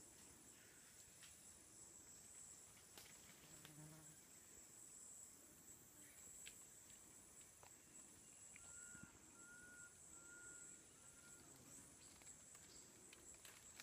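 Faint forest insects: a steady high-pitched insect drone throughout. About nine seconds in comes a run of about six short, even whistled notes.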